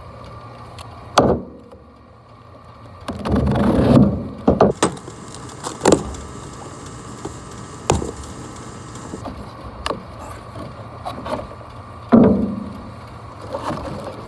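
Hand work on a removed HVAC blower motor and its parts: scattered metal clanks, knocks and rattles, with a longer scraping stretch about three seconds in, over a low steady hum.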